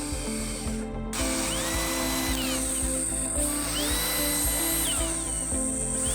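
Electric drill with a 1/8-inch bit drilling guide holes, its motor spinning up, holding and winding down several times, over background music.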